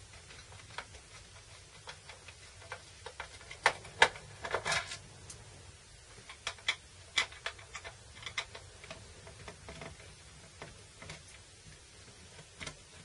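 Irregular small clicks and taps of a screwdriver working at the screws of a soldering station's plastic case. The screwdriver is too large for the unusual screw heads. A cluster of louder clicks comes about four to five seconds in.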